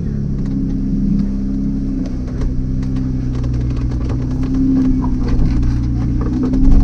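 Off-road 4x4's engine running at low revs as it crawls a rocky trail, steady with small changes in pitch. Scattered clicks and knocks sound over it throughout.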